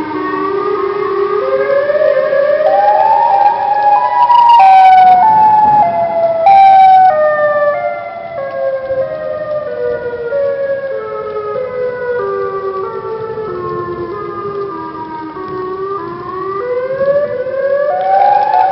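A siren-like wailing tone that climbs in small even pitch steps, then slowly steps back down and starts climbing again near the end; two short bursts of noise cut in about five and seven seconds in.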